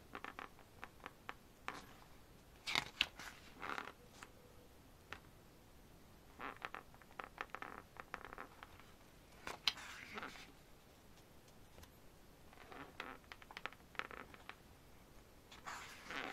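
Pages of a glossy photobook being turned by hand: faint paper rustles and flaps in short bursts every few seconds.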